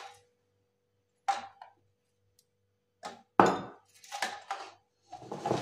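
Kitchen handling noises: a few short rustles and scrapes, with one sharper knock about three and a half seconds in, as a glass mixing bowl and a paper-lined cake pan are moved about on the counter.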